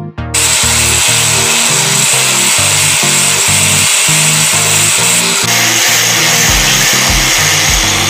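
Handheld angle grinder running, its cutting disc working a piece of PVC pipe; it starts about a third of a second in and runs steadily with a high whine that drops slightly past halfway. Background music plays underneath.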